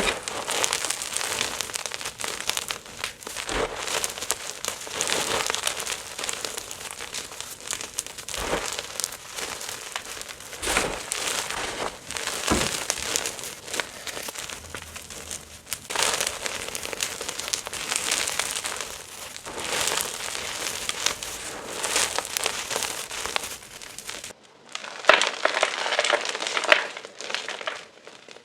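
Blocks and chunks of gym chalk being crushed and crumbled, giving a dense, continuous crunching and crackling with sharp snaps. The background changes abruptly about 24 seconds in, where another chalk-crushing clip begins.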